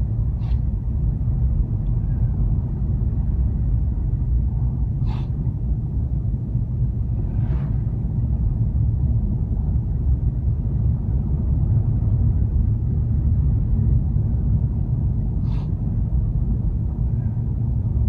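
Steady low rumble of a car driving on ice-covered roads, heard from inside the cabin: tyre and road noise with the engine underneath. A few brief sharp ticks break through, four in all.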